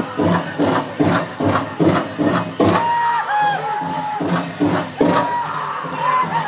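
Powwow drum song: a steady drumbeat at about three beats a second with singers joining in high held notes from about halfway through, and the jingling of dancers' bells over it.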